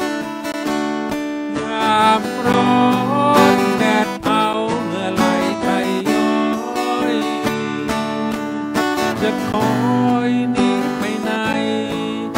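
Music: an acoustic guitar strumming, with a gliding melody line over it from about two seconds in.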